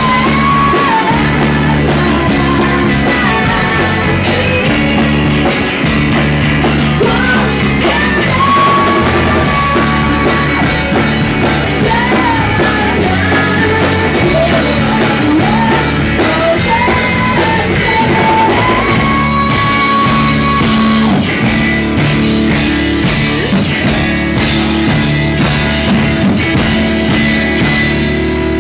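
Math rock band playing live: electric guitars, electric bass and drum kit, with a woman singing the lead vocal over them.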